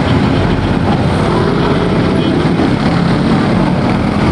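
Honda PCX 160 scooter's single-cylinder engine running while riding, under steady, loud wind and road noise on the microphone.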